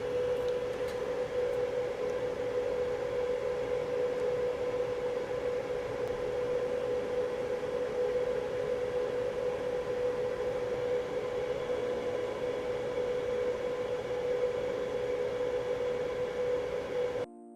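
Small electric blower or fan running steadily, a constant whirring hum with one steady tone, cutting off abruptly near the end.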